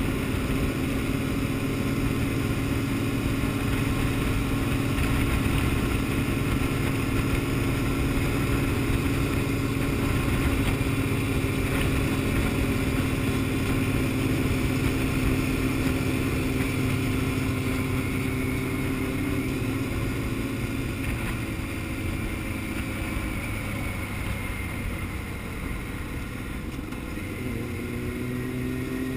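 Honda CBR600F's inline-four engine running at a steady cruise, with wind rushing over the microphone. The engine eases off in the second half and its note shifts near the end.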